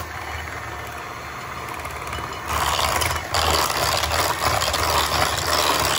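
Electric hand mixer running at its highest speed, its beaters whipping a thick buttercream-style filling in a bowl. The sound is steady and grows louder about two and a half seconds in.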